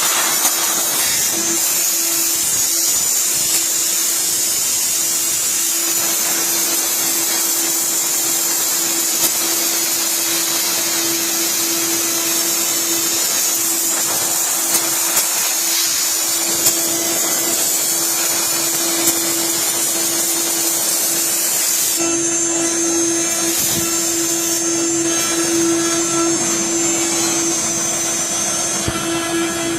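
CNC router spindle running steadily with a high hiss and a constant hum as it cuts acrylic, with a few faint ticks. About two-thirds of the way through, the hiss thins and the steady hum carries on.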